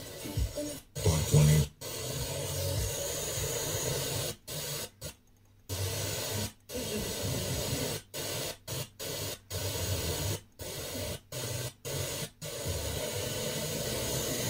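FM tuner static hiss on a weak, near-empty frequency, cutting out to silence for a split second about a dozen times as the tuner is stepped between channels, with one longer gap about five seconds in.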